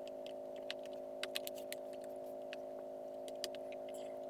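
Light, irregular clicks as the laptop's back cover is pressed on and its edge clips snap into place, heard in sped-up footage over a steady low hum of several held tones.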